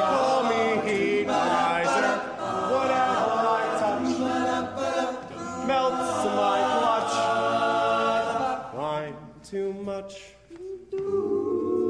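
A group of voices singing together in harmony, mostly holding long notes. The singing thins out briefly near the end, then a held chord comes in.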